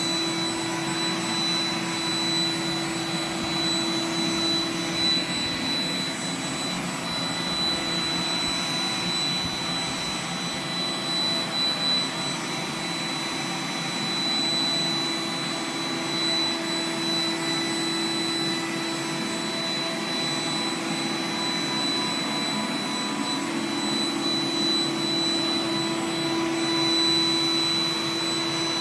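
iRobot Roomba 980 robot vacuum running steadily: a whirring suction noise with a steady high whine and a low hum.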